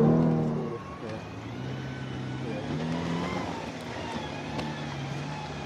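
Off-road SUV engine running close by, loud at first and fading within the first second, then a quieter, steady engine hum with slight rises and falls in pitch as it crawls along the dirt track.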